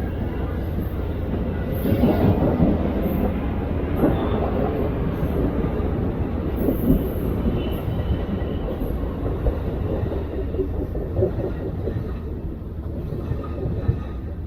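Amtrak Southwest Chief passenger train rolling past on the rails as it departs: a steady, dense rumble of wheels on track with scattered knocks and light wheel squeal, easing slightly near the end.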